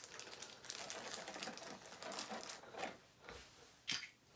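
Light, irregular clicking and rustling of plastic as a collectible figure and its packaging are handled and put back, with a soft knock a little after three seconds in and a sharper click near four seconds in.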